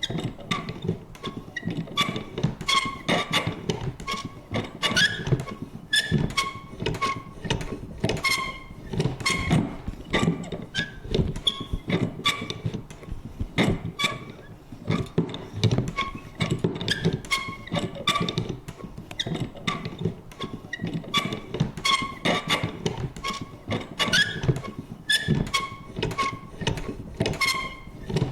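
Vintage paper punch worked over and over, each stroke a sharp click or clunk with a short squeaky creak, about one to two strokes a second in an uneven rhythm.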